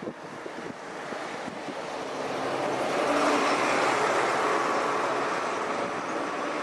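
Passing road traffic, a rushing tyre-and-engine noise that swells about two seconds in and stays loud, with wind buffeting the microphone at the start.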